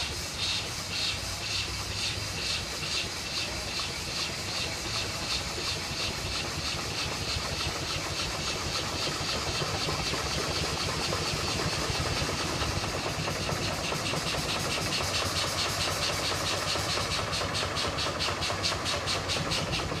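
Steam traction engine running, its exhaust chuffing out of the smokestack in an even beat that quickens toward the end as the engine picks up speed.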